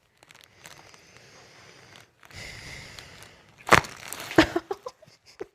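A patient breathing out slowly, then a sharp crack from the neck as a chiropractor makes the cervical adjustment, followed a moment later by a second, smaller pop and a few light clicks.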